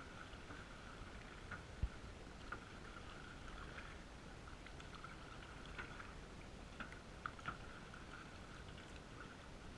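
Canoe paddling: paddle strokes through calm water, heard muffled through a GoPro's waterproof housing, with a few short knocks, the loudest about two seconds in.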